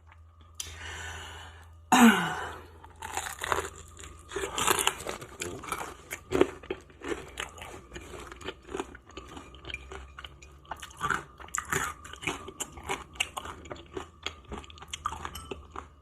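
A person biting and chewing crispy fried chicken close to the microphone: a loud bite about two seconds in, then a steady run of irregular crunches.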